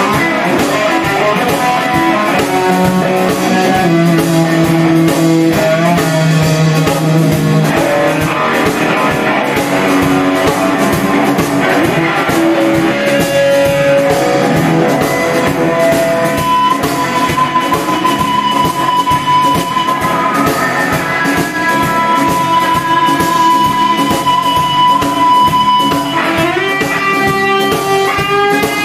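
Guitar-led rock music. About halfway through, one note is held for several seconds, then it slides upward near the end.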